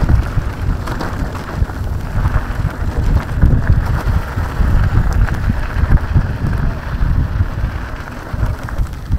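Loud, uneven wind buffeting and rumbling on the microphone of a rider moving along a trail.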